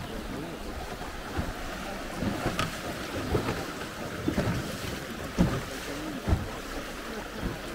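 Steady rush of river water with wind buffeting the microphone, and a few short knocks.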